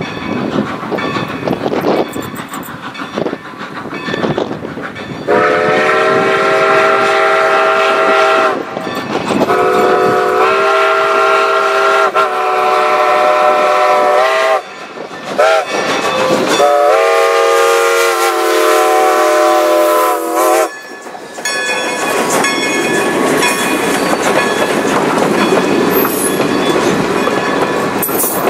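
Steam locomotive's chime whistle sounding four blasts about five seconds in, long, long, short, long: the grade-crossing signal. From about two-thirds of the way through, the passenger coaches roll past, their wheels clacking over the rail joints.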